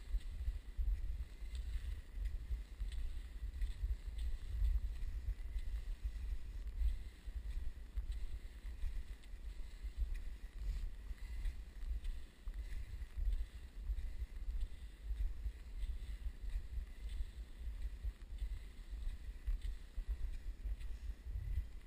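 Wind buffeting the microphone of a body-worn camera on a moving cross-country skier: a constant low, gusty rumble with faint scattered light ticks above it.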